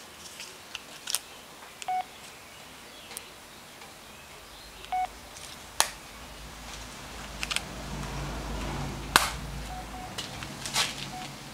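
Two short electronic beeps about three seconds apart, then a few fainter ones, among scattered sharp clicks and knocks.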